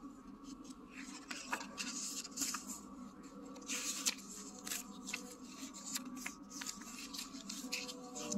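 Paper rustling and small taps as the pages and soft cover of a paperback catalogue are handled and turned, with a faint steady hum underneath.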